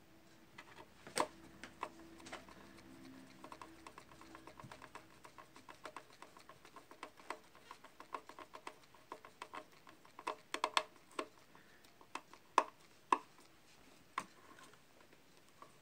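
Irregular small clicks and scrapes of a thin metal tool prying and working at the black plastic housing of an electric cookie maker, with a dense run of clicks about ten seconds in.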